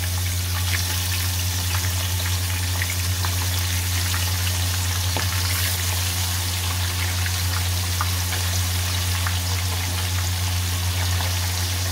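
Short mackerel frying in hot oil in a pan: a steady sizzle with many small scattered crackles and pops of spitting oil, over a steady low hum.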